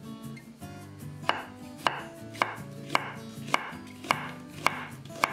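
Chef's knife slicing through a halved onion and striking a wooden cutting board: a steady run of crisp cuts, just under two a second, starting about a second in.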